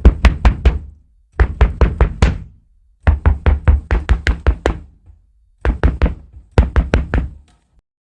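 Knocking on a door: several rapid series of knocks, four to ten strokes each at about five a second, with short pauses between them.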